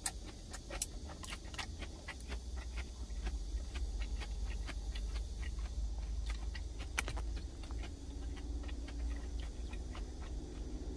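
Eating sounds: wooden chopsticks clicking and scraping against a stainless-steel bowl, with chewing, as many small irregular clicks over a steady low hum.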